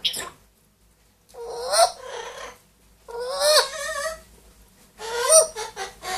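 Pet parrots calling: three separate calls, each about a second long, with the pitch bending and rising within each call.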